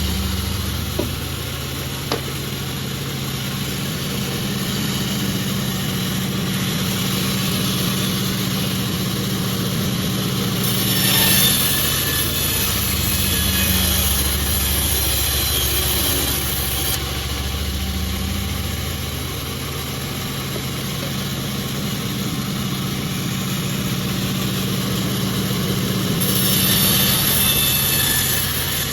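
Sawmill machine running steadily with a low hum, and two stretches of higher hiss, about eleven to seventeen seconds in and near the end, as the saw cuts through jackfruit wood. Two sharp clicks early on.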